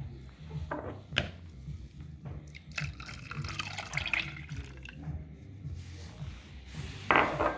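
Milk being poured from a cup into a bowl of beaten eggs, a splashing, trickling liquid sound, with a few light knocks of the cup or bowl about a second in.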